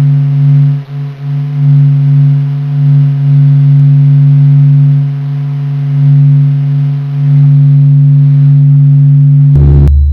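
Low, steady droning hum with a stack of overtones, slowly swelling and easing: the 'sound of the Sun', solar data turned into audible sound. Near the end it gives way to a deeper rumble.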